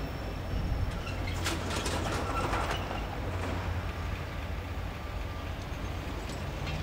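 Norfolk Southern freight train rolling past: a steady low rumble of cars on the rails, with a few sharp clicks between about one and a half and three seconds in.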